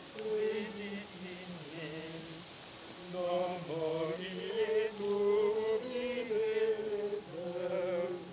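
Men's voices chanting plainchant (Gregorian chant), slow held notes moving step by step, growing louder about three seconds in.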